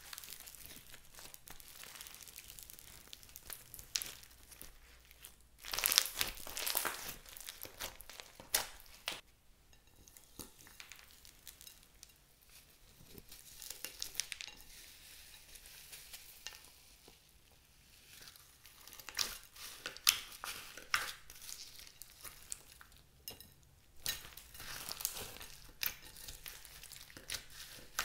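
Hands squishing, stretching and mixing clear slime loaded with foam beads and floam: sticky crackling and crinkling with irregular flurries of small clicks and pops, louder in bursts and quieter in between.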